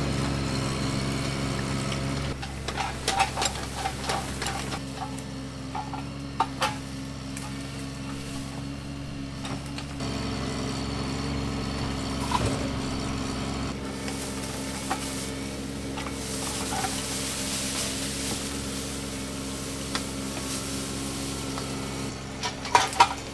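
Bobcat mini excavator's diesel engine running steadily while the machine tracks along a dirt path and works in the brush, with scattered clanks and rattles from the tracks and steel arm.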